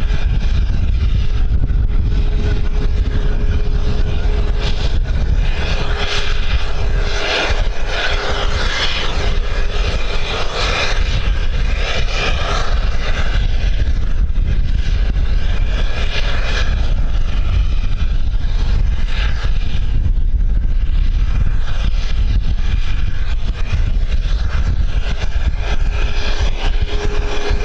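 Airplane engine running steadily, with a faint whine under heavy wind rumble on the microphone.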